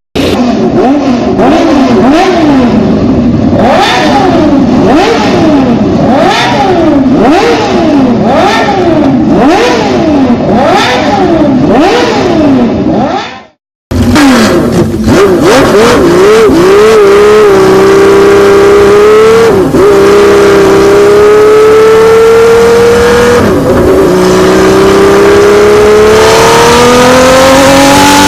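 Classic motorcycle engine revved again and again, its pitch rising and falling about every second and a half. After a brief cut, a motorcycle engine is blipped a few times, then held at high revs with the pitch slowly climbing, dipping briefly twice.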